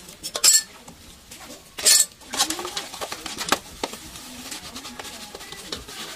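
Crockery being washed by hand in a metal basin of soapy water: splashing with small clinks of bowls and plates, and two louder splashing clatters about half a second and two seconds in.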